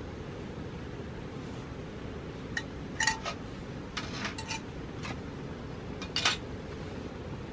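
Metal cookware clinking and knocking several times, short metallic clinks with a light ring, as a small cast-iron skillet of sliced onions is handled and set down on a metal mesh camp table. A steady low rumble runs underneath.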